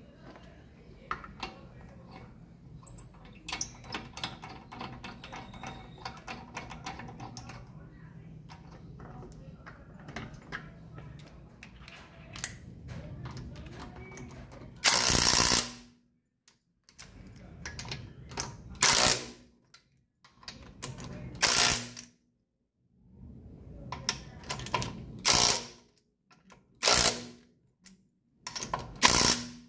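Hand ratchet wrench clicking rapidly on a wheel's lug nuts. In the second half there are several loud, short bursts of noise with abrupt silences between them.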